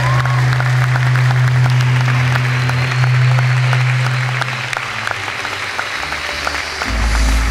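Audience applauding in a hall. A low steady hum runs under the clapping for the first few seconds, and low music comes in near the end.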